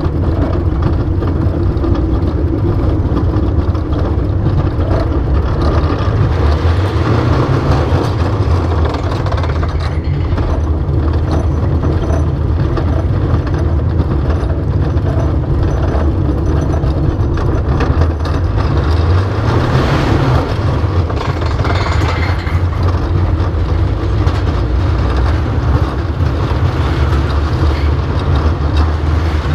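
Schwarzkopf Galaxi steel roller coaster train running on its track, heard from on board: a steady low rumble that grows louder and harsher about twenty seconds in.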